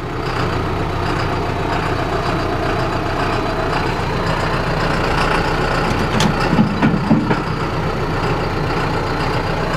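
John Deere tractor's diesel engine running steadily, with a couple of light clicks about six seconds in.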